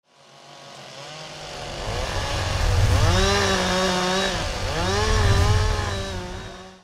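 Chainsaw engine revving: it fades in, rises in pitch about three seconds in, drops back briefly, then revs up again and holds before fading out.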